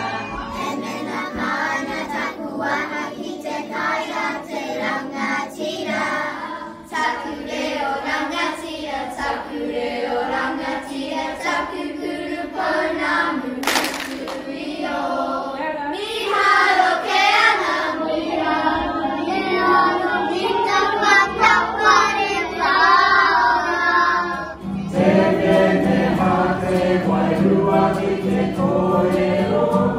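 Groups singing waiata in te reo Māori: children's voices, then adults, with an acoustic guitar under some of it. The song and the group change abruptly several times.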